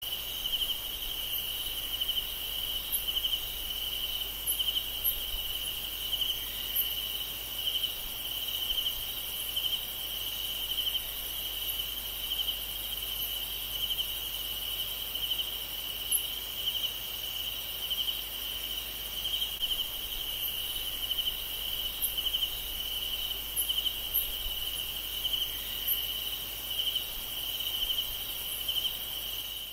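Insects trilling in a steady, rapidly pulsing high-pitched chorus, with faint short higher chirps scattered through it.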